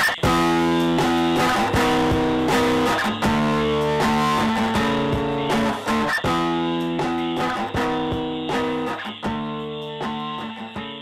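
Guitar music, chords strummed in a steady rhythm, fading out gradually over the second half.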